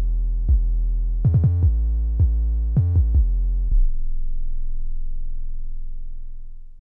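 Deep synthesized 808 bass line from a MIDI pattern: a run of short, punchy notes at changing pitches, then one note held about three seconds that fades and cuts off abruptly near the end.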